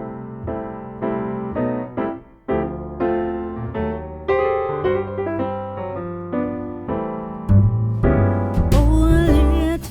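Background music: a piano playing chords, with a fuller accompaniment and bass coming in about seven and a half seconds in.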